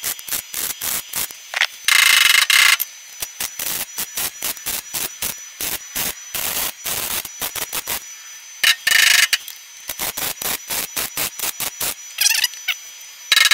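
Flux-core wire welder stitch-welding sheet steel: a rapid, harsh crackle of the arc, broken by several louder bursts about a second long.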